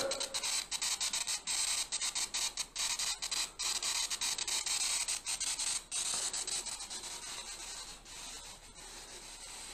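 Choppy static hiss from a ghost-box app on a phone, cut off and restarting several times a second, growing fainter over the last few seconds.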